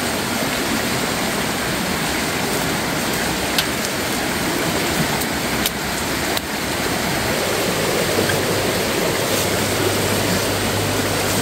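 Steady rushing noise of water, with a few faint clicks; a low steady hum joins about eight seconds in.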